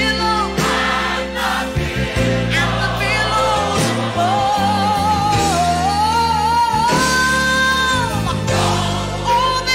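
Gospel singing with instrumental accompaniment: a sung melody of long held, wavering notes that slides up to a higher held note about seven seconds in and falls away a second later, over sustained chords.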